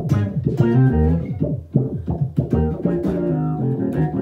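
Electric bass played through a Source Audio bass envelope filter with a Boss OC-2 octave pedal added, giving a synth-like sound. A quick riff of plucked notes, several per second, each with a filter sweep.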